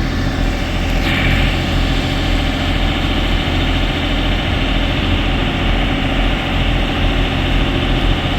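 A sailing boat's engine running steadily under way, with a loud rushing hiss over it that grows stronger about a second in.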